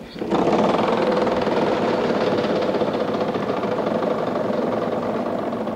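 Game-show prize wheel spinning, its pegs clicking rapidly and steadily against the pointer, easing slightly near the end.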